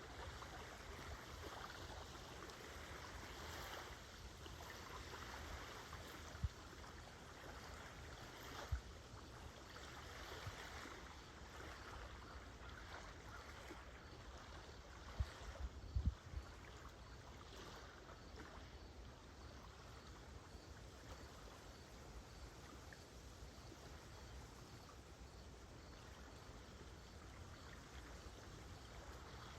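Small waves of a calm Great Lakes shore lapping softly, a faint steady wash of water, with faint, evenly repeated cricket chirps in the background. A few brief low thumps stand out, twice in the first third and a cluster a little past the middle.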